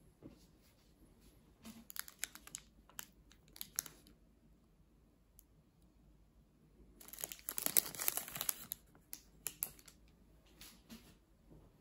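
Thin clear plastic wrapper crinkling as it is handled and peeled off a sweet: scattered short crackles, then a longer run of dense crinkling past the middle, and a few more crackles after it.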